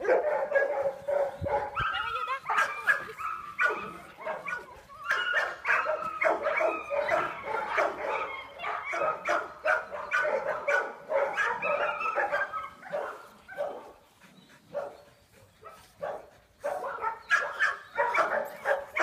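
Several small dogs barking and yapping while they play, with short quick barks overlapping most of the time. The barking eases off briefly about two-thirds of the way through, then starts up again near the end.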